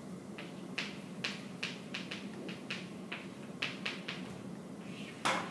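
Chalk on a chalkboard: a string of short, irregular taps and scratches as a word is written, over a steady low hum, with one louder scrape near the end.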